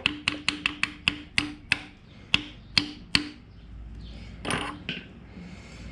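About a dozen sharp metallic taps on a 1-1/4 inch socket, each ringing briefly, driving a new outer seal into a power steering pump. They come quickly at first, then more spaced out, and stop a little after three seconds in.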